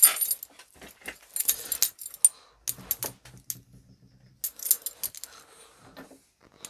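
Handling noise from a small metal model engine: a string of sharp metallic clicks and clatters as it is set down on a workbench and picked up again, the loudest knock right at the start.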